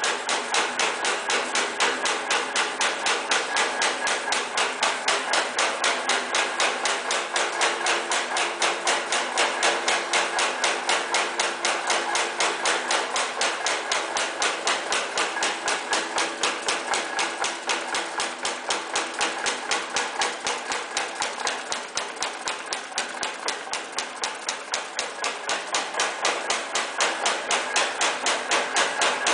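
Silicon STA high-speed punching press stamping saw teeth into band saw blade strip, a fast, even train of metallic strikes at about eight strokes a second.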